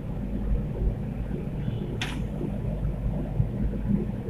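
Steady low rumble of a gas burner under a large aluminium wok of simmering curry sauce, with a brief clatter about two seconds in.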